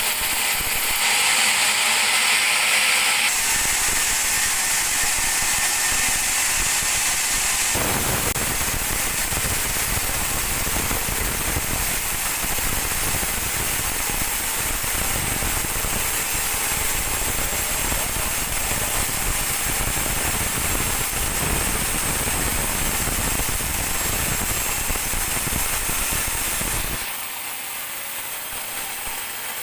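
Large band sawmill running and sawing a teak log, a dense steady machine-and-cutting noise. It gets heavier about eight seconds in and eases off again shortly before the end.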